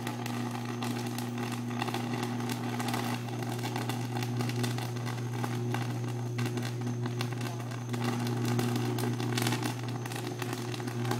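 Pole-mounted electrical transformer arcing: a steady low electrical buzz with irregular crackling throughout, the sound of a sustained fault arc at the pole.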